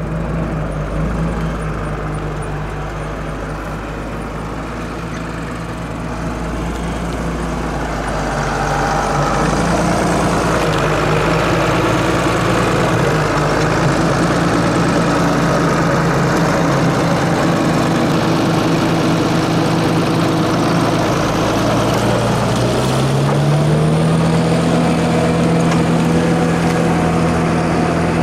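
Fendt Favorit 612 LSA Turbomatik tractor's diesel engine running steadily while pulling a reversible plough through the soil. The engine gets louder partway through, and near the end its note climbs and holds higher as the revs rise.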